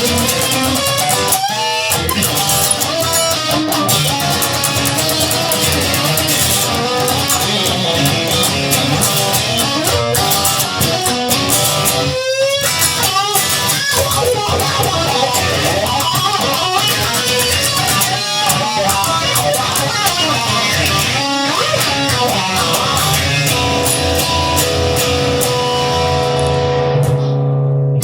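Instrumental break of a blues-rock song: an electric guitar plays a lead line of bending notes over bass and rhythm, settling into held notes near the end.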